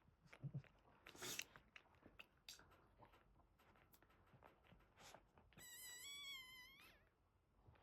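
A newborn Boston terrier puppy gives one high, wavering squeal lasting just over a second, a little past halfway through, among faint rustling and clicks from the litter.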